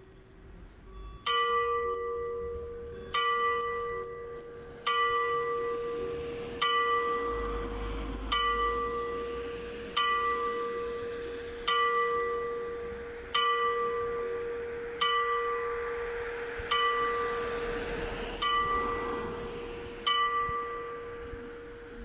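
A tower bell striking twelve slow strokes, about one every 1.7 seconds. Each stroke rings out and fades, and the bell's low hum tone carries on between strokes.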